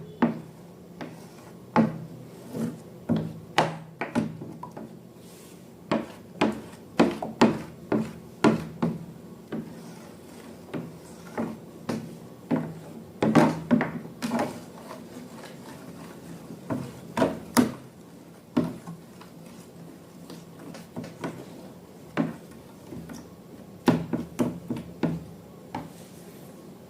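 Objects handled on a tabletop: irregular taps and knocks, some in quick clusters, with rubbing and scraping between them, over a faint steady hum.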